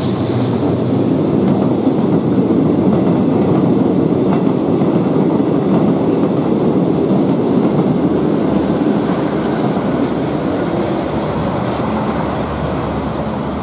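Passenger coaches of a diesel-hauled train rolling past on the rails: a steady rumble and rattle of wheels on track, slowly fading near the end as the train draws away.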